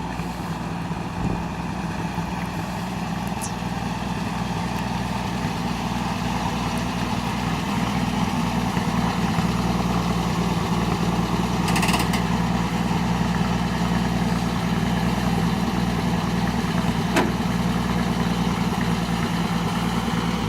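Vehicle engine idling steadily, slowly growing louder. There is a short hiss about twelve seconds in and a sharp click a few seconds later.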